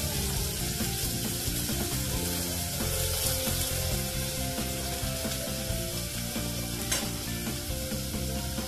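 Food frying and sizzling in a small metal pot over a portable gas canister stove's flame, with a steady hiss throughout. A single sharp tap sounds about seven seconds in.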